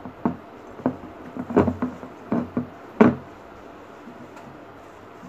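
Handling noises as a bunch of tissue-paper flowers is pushed into a vase: a run of short knocks and rustles, the loudest about three seconds in, then quiet handling for the rest.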